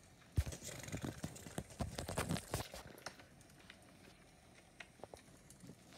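Handling noise: a quick run of taps, knocks and rustling as small plastic toys are moved and set down close to the microphone, lasting about two seconds and starting just under half a second in.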